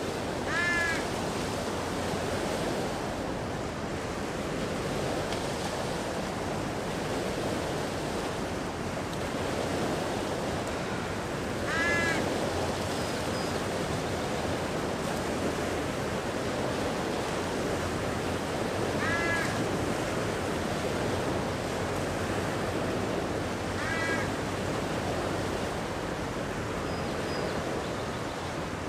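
Small waves wash steadily against a rocky beach under a light wind. A crow caws four times over it: right at the start, about midway, and twice more toward the end.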